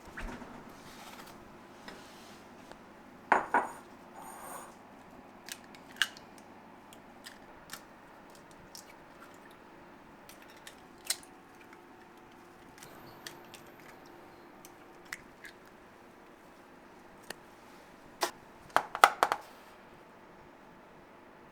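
Scattered light clinks and knocks of bakery utensils and metal pans being handled, with a quick run of knocks near the end, over a faint steady hum.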